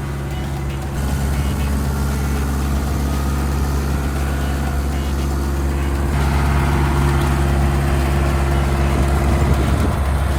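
Firewood processor's engine running steadily, a low even drone that grows a little louder about a second in and again around six seconds.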